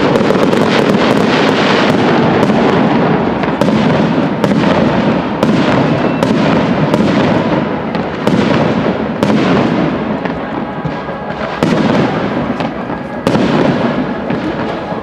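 Large fireworks display: a continuous barrage of launches and aerial shell bursts, many sharp bangs over a steady crackling din.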